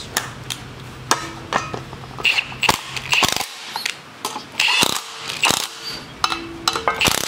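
Hand ratchet with a 9/16 socket clicking in quick irregular runs as nuts are run down onto the studs of a Firestone air spring, through its upper mounting bracket, with a short pause about halfway.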